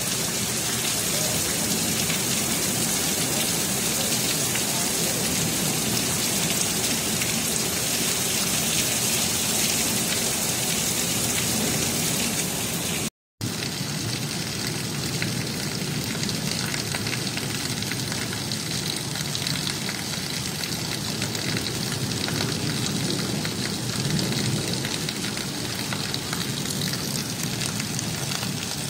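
Heavy rain falling steadily on a flooded street and puddles, with one brief silent break about 13 seconds in.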